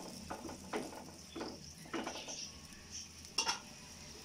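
Spatula scraping and knocking against a metal karahi while tomatoes and green chillies are stirred into a frying spice paste: a quick run of short scrapes over the first two seconds, then one more about three and a half seconds in.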